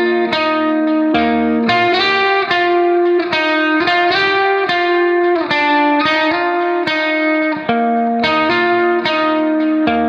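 Background music: a melody of plucked guitar-like notes in quick succession, several a second.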